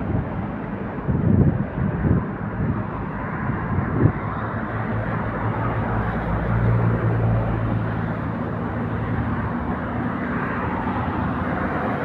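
Heavy trucks passing on a rain-soaked highway: a steady engine drone over a broad hiss, with one truck's low engine hum swelling about six to eight seconds in. A few low bumps come near the start and a short sharp knock about four seconds in.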